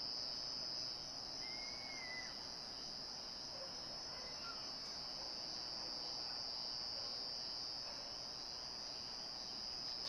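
Night insect chorus, crickets trilling steadily in one high-pitched tone, with a single faint short call about a second and a half in.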